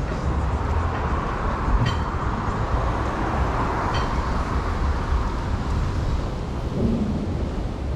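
Road traffic passing: a steady rumble of car engines and tyres, with a whoosh that swells around the middle as a vehicle goes by. Two faint clicks come about two seconds apart.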